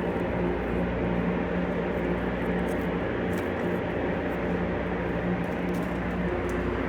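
Steady drone of running machinery with an electrical hum and a few faint ticks; the hum shifts slightly near the end.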